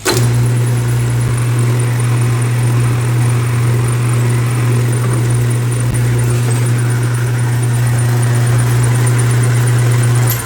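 Metal lathe running with a steady low hum while a centre hole is drilled into a metal bushing; it starts suddenly and cuts off near the end.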